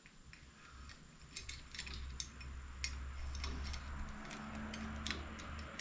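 Small metallic clicks and ticks, many in quick irregular succession, as a steel bicycle brake cable and its housing are worked and handled by hand.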